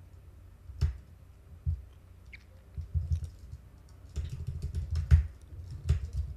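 Computer keyboard keys being pressed: single keystrokes about a second apart at first, then quicker clusters of keystrokes in the second half.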